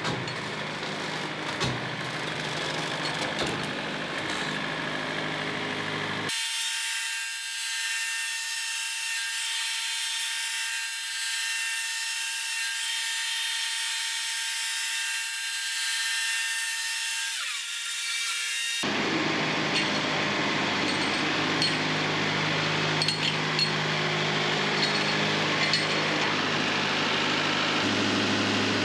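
Wood-Mizer portable band sawmill running, its blade sawing through a poplar log over the steady hum of its engine. The sound cuts abruptly about six seconds in to a thin, high hiss with the low hum gone, and returns to full about nineteen seconds in.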